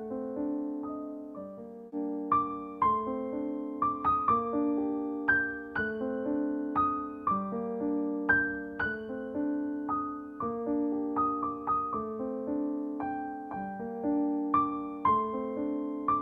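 Background piano music: a slow melody of single struck notes that fade away, over lower chords.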